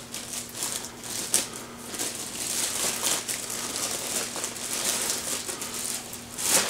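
Thin clear plastic bag crinkling and rustling as it is unwrapped from a camcorder by hand, with a louder crackle near the end.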